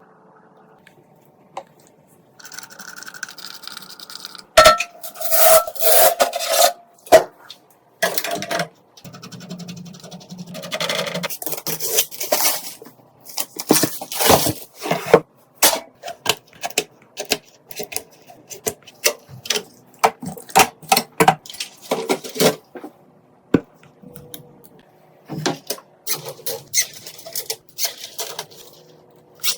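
PC parts being handled and fitted by hand: irregular clicks, clinks, knocks and scrapes of hard plastic and metal, beginning about two seconds in and growing busier from about five seconds in.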